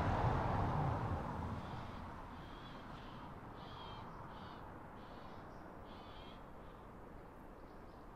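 The rumble of a passing train fading away over the first couple of seconds, then a bird calling over and over, short high calls about once or twice a second.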